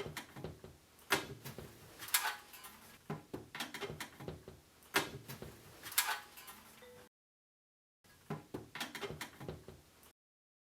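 Legs being pushed and fitted into the corner sockets of an upside-down laundry tub: a series of sharp clunks and knocks, four of them louder than the rest. The sound cuts out to silence twice in the second half.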